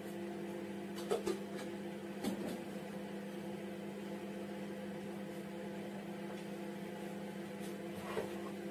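Microwave oven running with a steady hum while reheating food. A few light clicks or knocks sound about a second in, around two seconds in, and near the end.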